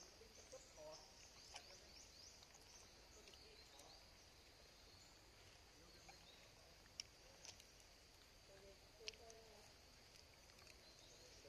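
Very faint forest ambience: a steady insect drone with scattered bird chirps, a few faint sharp clicks, and faint distant voices near the start and again about nine seconds in.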